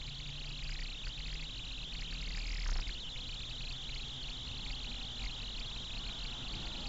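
Steady cabin noise of a stationary car picked up by a dashcam microphone: a constant hiss over a low rumble, with one brief swell of noise a little under three seconds in.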